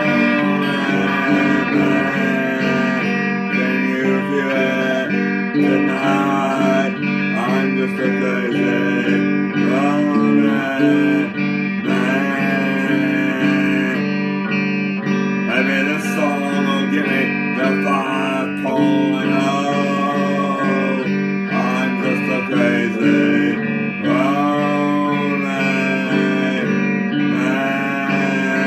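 Electric guitar strummed in a steady rhythm, with a voice singing a wordless melody over it.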